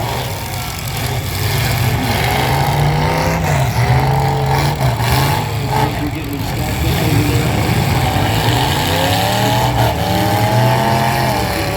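Several demolition derby cars' engines revving up and down together, their pitch rising and falling as they push and reverse, with a few bangs of cars colliding.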